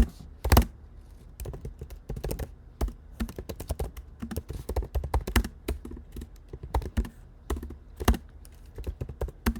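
Fast, continuous typing on a 14-inch MacBook Pro's built-in laptop keyboard: rapid, irregular low-travel key clicks, with an occasional heavier key strike standing out.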